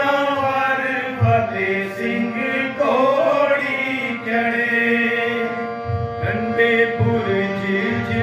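Devotional kirtan music: a harmonium holding steady chords under men's voices singing long notes that bend in pitch, with tabla strokes giving deep bass thumps about a second in and again several times near the end.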